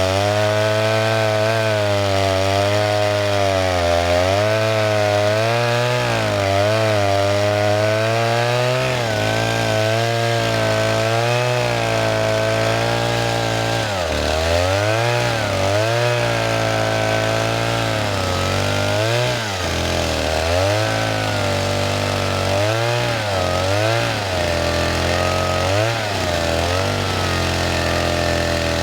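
Old Stihl 08 S single-cylinder two-stroke chainsaw running at high revs, its pitch wavering. In the second half it repeatedly dips in pitch and recovers.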